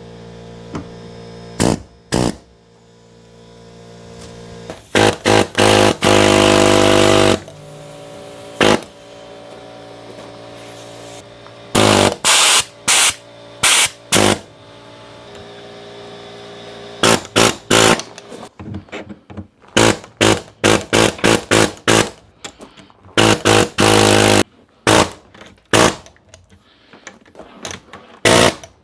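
Cordless power tool run in repeated short bursts, with a few longer runs of a second or two, and quieter handling noise in the gaps.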